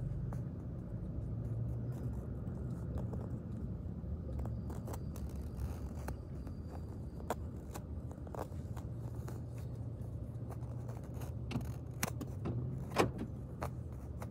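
Intermodal freight train rolling past: a steady low rumble with scattered metallic clicks, and one sharper clank near the end.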